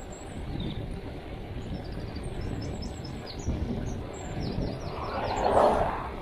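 Wind rumbling on the microphone, with a bird chirping a quick run of short, high, falling notes through the middle. A louder rush of noise swells and fades about five seconds in.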